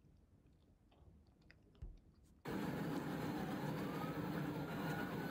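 Quiet room with a few light clicks and a soft thump, then about halfway through a loud recording of a vehicle on the move cuts in suddenly, carrying a faint tone that slowly rises and then falls.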